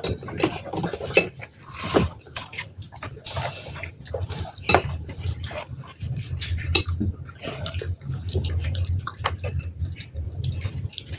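Close-miked eating: chewing and mouth noises from noodles and fried snacks, with a steady run of small clicks and crackles and forks clinking now and then against glass bowls.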